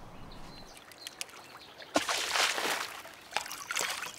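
A frog leaps into shallow water with a sudden splash about two seconds in, followed by small trickles and drips.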